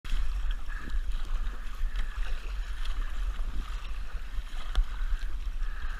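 Water sloshing around a kayak moving on the sea, with a steady low rumble of wind on the microphone.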